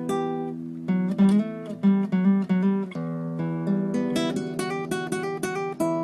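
Background music: an acoustic guitar playing a run of quick plucked notes and strums.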